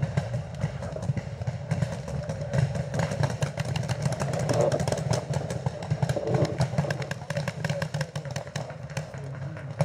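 Paintball markers firing, sharp pops several times a second, with a steady low rumble of wind and movement on the camera's microphone underneath.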